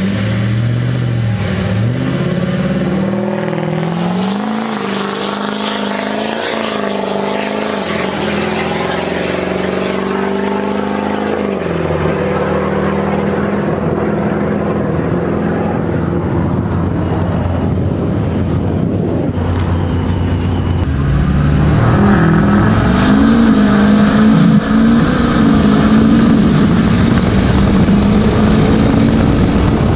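Duramax LLY 6.6-litre V8 turbodiesel pickup accelerating hard down a drag strip from a mild boosted launch. The engine pitch climbs and drops back at each upshift, and it grows louder about two-thirds of the way through.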